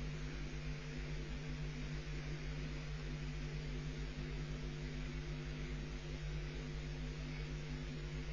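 Steady electrical hum with an even hiss underneath, unchanging throughout.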